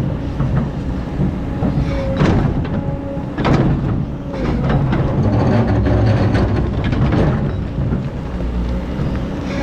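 Excavator digging sand: its diesel engine runs with a steady low rumble under load, and there are sharp clanks about two and three and a half seconds in.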